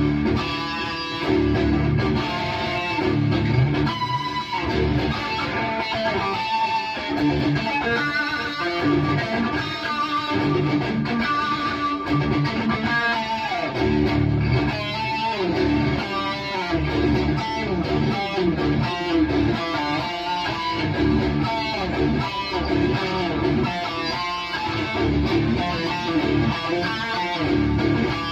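High-gain distorted electric guitar through a Bogner Uberschall preamp, playing palm-muted chugging metal riffs with some sliding notes between them.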